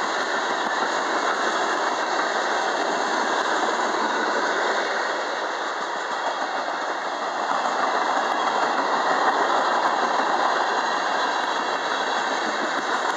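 Freight cars of a mixed manifest train rolling past close by: a steady rumble and rattle of steel wheels on the rails, swelling a little about two-thirds of the way through.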